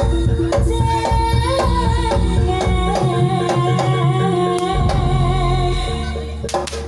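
Live jaranan gamelan music played loud through speaker stacks: drum strokes keep a steady beat under heavy bass and a sustained, wavering melody line.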